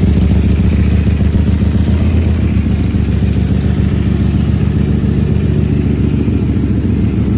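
Ducati Panigale V4's 1103 cc V4 engine idling loudly through an Austin Racing aftermarket exhaust, still warming up after a cold start. It runs with a steady, fast pulsing beat, and the deepest part of the note eases a little about two and a half seconds in.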